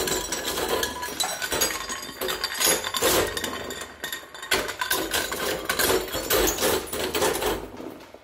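A twin-shaft shredder's steel cutters crunching up hard white pieces, a dense run of sharp cracks and clinks. It dies away near the end as the cutters run empty.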